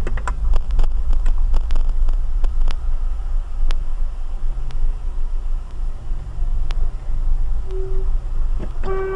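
Low road and engine rumble inside a moving car, with scattered light clicks and knocks. A car horn gives a short toot about three quarters of the way in, then a long, steady blast near the end.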